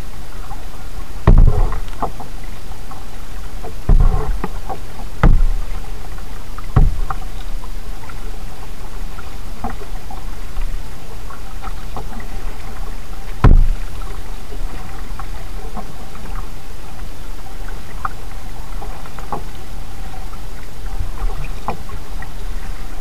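Kayak being paddled, heard from a camera mounted on its bow: a steady low rush of water, broken by five loud thumps, the first about a second in and the last about thirteen seconds in.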